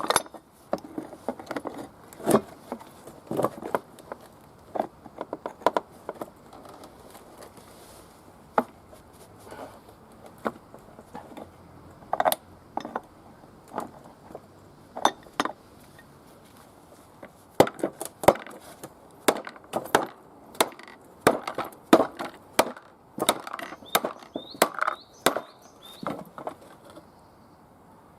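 Irregular sharp knocks and clacks of hand tools working at a washing machine part that won't turn, some in quick clusters and some spaced out, thinning out partway through.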